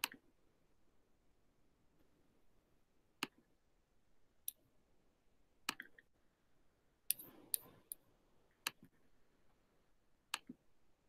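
Sparse, sharp clicks of a computer mouse, about ten at irregular intervals, some in quick pairs, with quiet between them.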